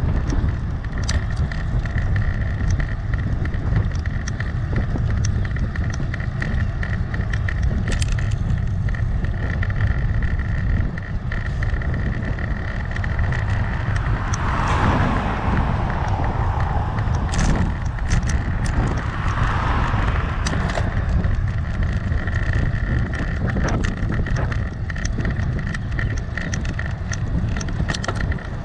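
Wind rushing over a GoPro's microphone while riding on a road, with steady rumble underneath and scattered small clicks and knocks. About halfway through, traffic swells up and fades twice as vehicles pass.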